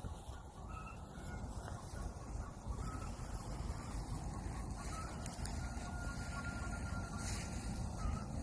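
Steady low rumble of wind on the microphone, with faint short bird calls scattered through it and one longer call a few seconds in.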